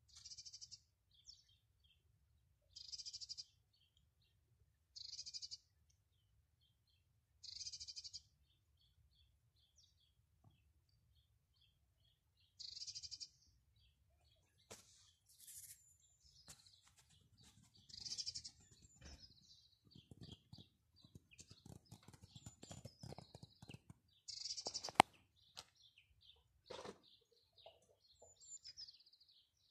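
A bird calling in short, high chirps, repeated every two to three seconds. In the second half there are scattered faint clicks and scuffing, and one sharp click a few seconds before the end.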